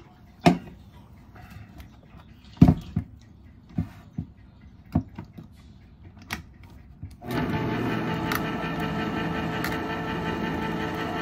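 A series of knocks and clatters from kitchen items being handled. About seven seconds in, an electric blender's motor starts suddenly and runs at a steady speed.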